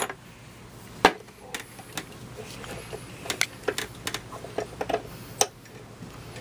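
Scattered metal clicks and clinks of Mosin-Nagant bolt parts being handled, with a sharp knock about a second in and another near the end.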